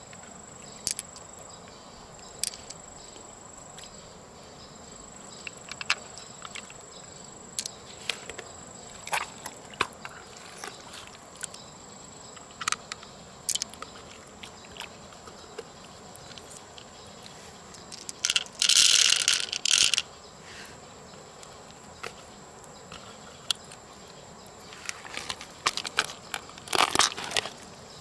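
Wet squelching and clicking of hands working through the soft flesh of an opened freshwater mussel, over a steady high-pitched tone. About two-thirds through comes a louder crackling rush lasting a second or two, and near the end a dense patch of wet splatter as the flesh is pulled out onto wet mud.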